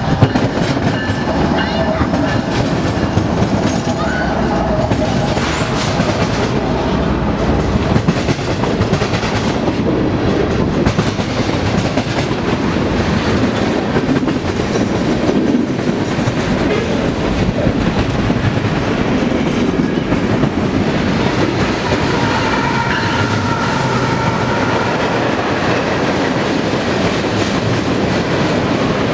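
A train rolling past: the continuous rumble of railcar wheels on the rails, with clacking over the rail joints.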